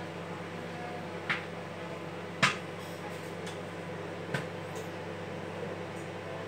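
Popcorn kernels popping inside a running Sanyo 800 W microwave oven: three sharp pops, the loudest about two and a half seconds in, and a couple of fainter ones, over the oven's steady hum.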